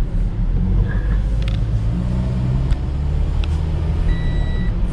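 Car engine and tyres heard from inside the cabin while driving slowly: a steady low rumble, with a few sharp clicks and a brief high steady tone near the end.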